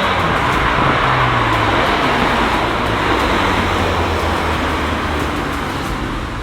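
VW Golf R Mk8's turbocharged 2.0-litre four-cylinder engine and exhaust on the move, the engine note dropping in pitch over a steady rush of tyre and road noise.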